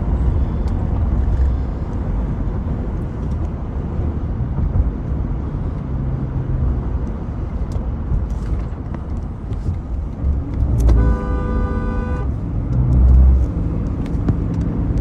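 Steady low rumble, with one car horn blast lasting about a second and a half, about eleven seconds in.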